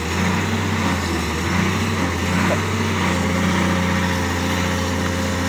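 Caterpillar tracked excavator's diesel engine running steadily with a deep, even hum; a steady higher hum joins about three seconds in.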